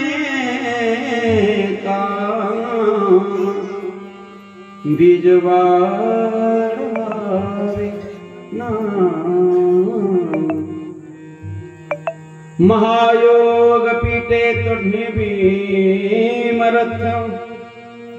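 A man's solo voice singing a slow devotional kirtan melody into a microphone. He holds long, ornamented notes in phrases, with short breaks about four and a half and twelve seconds in.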